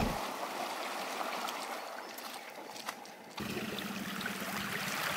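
Faint lapping and trickling of small waves in shallow water along the shore. A little past halfway the background steps up slightly and a faint low steady hum joins it.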